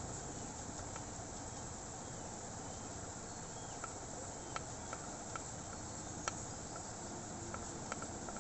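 Oil pastel scratching on paper as an area is coloured in: a steady scratchy hiss with a few scattered light ticks.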